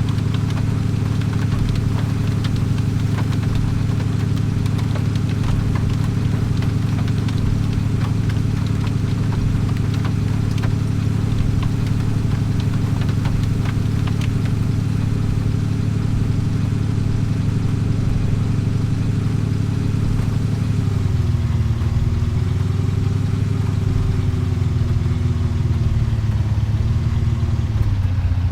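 A vehicle engine running with a steady low hum; about three-quarters of the way through its pitch starts to waver, dipping and rising.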